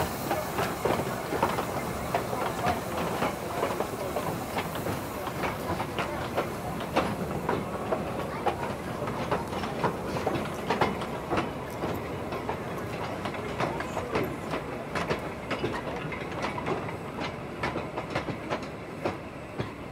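Narrow-gauge steam train passing close by. The locomotive's steam hiss fades over the first few seconds, and then the carriage wheels keep up a run of irregular clicks and clanks over the rail joints.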